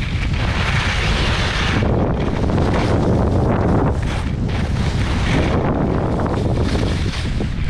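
Loud wind rumble buffeting a helmet-mounted GoPro Hero 8 Black's microphone during a fast ski descent, with the hiss of Blizzard skis on packed snow swelling and fading through the turns.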